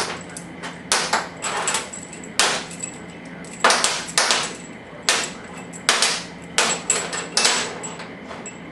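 Steel cylinder-head bolts for a 2001 Yamaha R6 clinking against each other and the bench as they are handled and set down: about a dozen sharp metallic clinks at uneven intervals.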